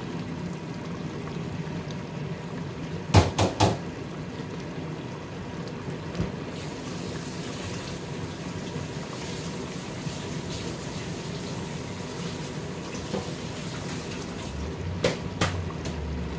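Chicken karahi simmering in an open pressure cooker, giving a steady low bubbling hiss as it nears the end of cooking. Three sharp knocks come about three seconds in and two more near the end.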